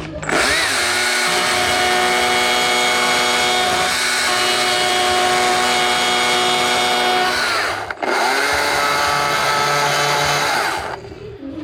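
Chainsaw running at high, steady revs for about seven seconds, dropping out briefly about eight seconds in, then revving up again and cutting off about eleven seconds in.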